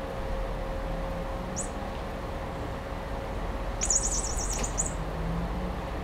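High bird-like chirping from a cat's toy mouse on a wand: one short chirp, then about two seconds later a quick warbling run of chirps lasting about a second.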